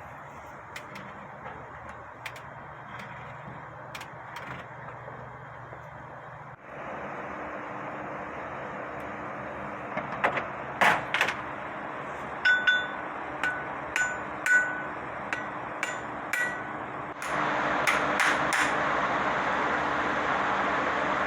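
Farrier's hammer striking steel in a series of sharp blows, about two a second through the middle, each ringing with a clear metallic tone. Steady background hiss underneath.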